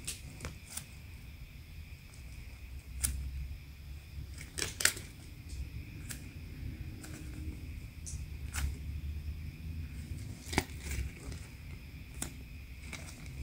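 Faint handling sounds of a foam squishy being squeezed and turned in the hands, with a few sharp little clicks scattered through.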